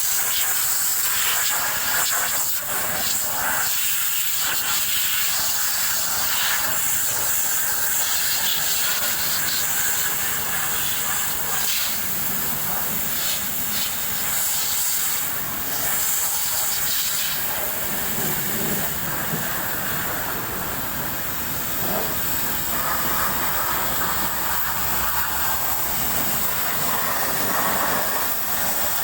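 Steady high-pressure hiss of a carwash spray gun jetting onto a bus engine, with a change in tone a little past halfway as the jet moves.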